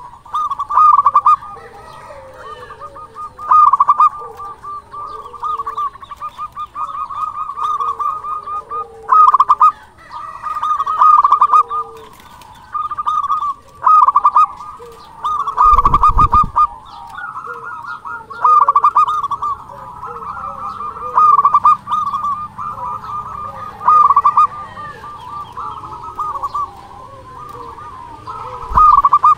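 Zebra dove (perkutut) cooing: a loud, stuttering phrase of rapid notes repeated every two to three seconds, with softer, lower notes in between. A brief low thump comes about halfway through.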